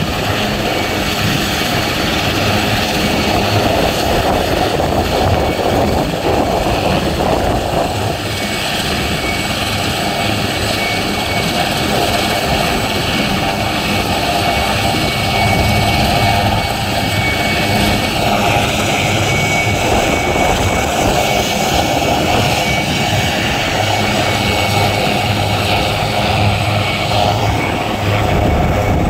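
RAF Puma helicopters running on the ground: loud, steady turbine and rotor noise with a thin high whine held over it.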